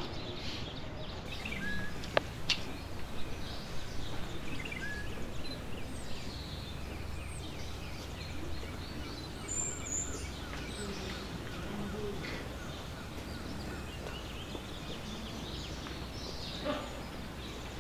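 Outdoor ambience: a steady low background hum with scattered short bird chirps and calls, and two sharp clicks about two seconds in.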